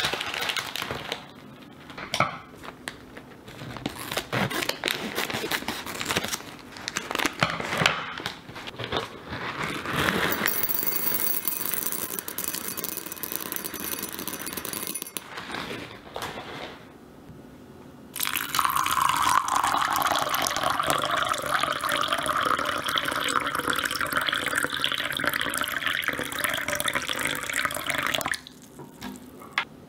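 A plastic pack of dry tapioca pearls is torn open and handled, crinkling and clicking. Around the middle the pearls rattle into a glass measuring cup. Then water is poured into the cup over them, a steady pour of about ten seconds that stops shortly before the end.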